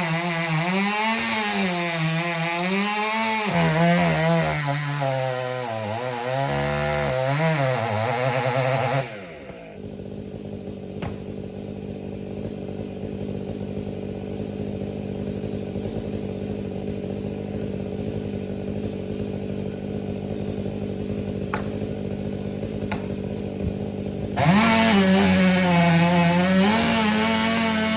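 Gas chainsaw running, its pitch rising and falling with throttle and load. About nine seconds in it cuts off abruptly to a quieter steady low hum with a few clicks, and near the end the saw sound comes back just as abruptly.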